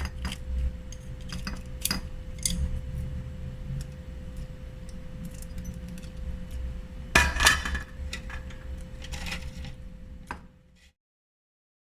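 Scattered clinks and rattles of a spoon against a container as crispy fried anchovies are moved into it for storage, with a louder flurry of clatter about seven seconds in. A faint steady hum sits underneath, and everything cuts off to silence near the end.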